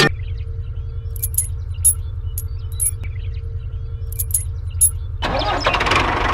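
A small engine of a miniature model tractor runs steadily with a low, fast chugging. Light metallic clinks come and go. About five seconds in, a louder rushing, grinding noise joins it.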